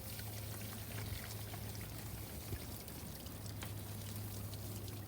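Water running and pouring steadily, with scattered light clicks and knocks, from rinsing freshly dug turmeric rhizomes. A steady low hum sits underneath.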